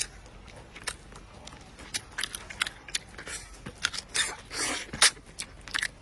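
Eating chicken soup with rice: many quick clicks and scrapes of utensils against a bowl, with chewing and a few longer noisy mouthfuls about four to five seconds in.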